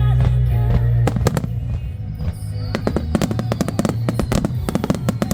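Starmine fireworks display: many shells bursting and banging in quick succession, several a second, starting about a second in, over music with a steady bass playing along with the show.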